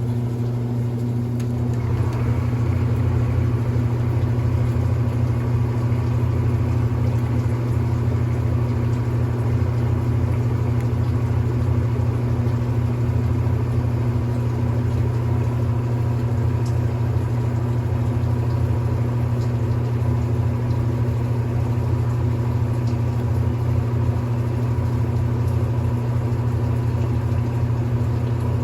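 Brastemp Intelligent 7 kg washing machine in its spin cycle: a steady hum from the spinning drum and motor, a little louder about two seconds in, then running evenly without knocks or banging.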